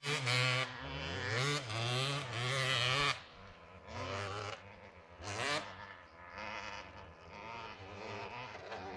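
Off-road motorcycle engine revving close by for about three seconds, its pitch rising and falling with the throttle, then fainter dirt-bike engine sound with a couple of short revs.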